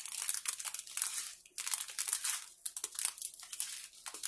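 Clear plastic bags of diamond-painting drills crinkling as they are handled, in irregular bursts with brief pauses.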